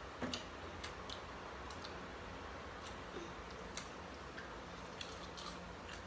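Scattered small clicks and taps of eating at a table, the loudest just after the start, over a faint steady room hum.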